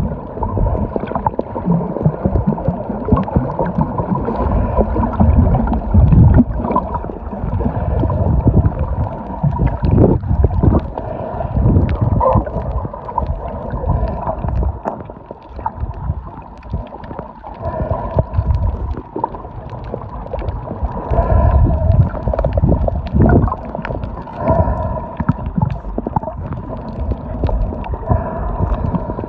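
Muffled underwater sound from a camera held beneath the surface while snorkeling: water sloshing and gurgling against the microphone in irregular low surges, with a faint steady hum underneath.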